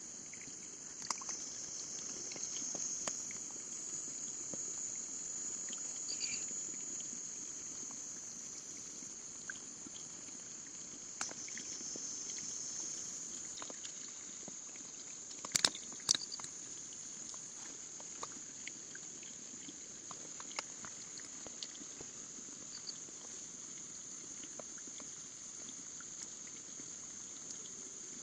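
Steady high-pitched insect chorus, like crickets, running on without a break. Scattered sharp clicks and knocks sound over it, with the loudest cluster about sixteen seconds in.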